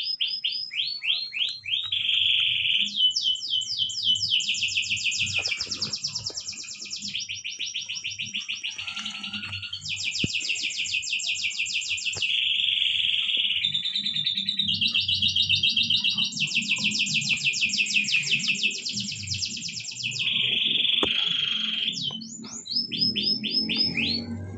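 A small songbird singing a long, varied song of rapid trills and repeated chirps, switching to a new trill type every second or two.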